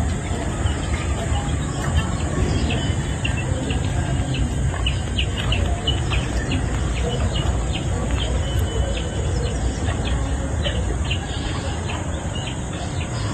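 Birds chirping in quick short notes over a steady insect drone, with a continuous low rumble underneath.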